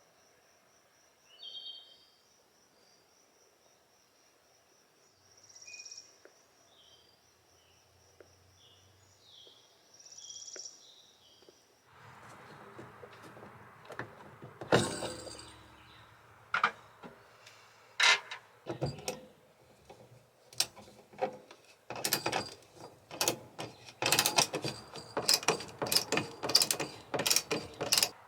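Crickets chirping steadily, with a few short bird chirps over them. About halfway through this gives way to a busy run of sharp knocks, clicks and clatter, growing louder and denser toward the end.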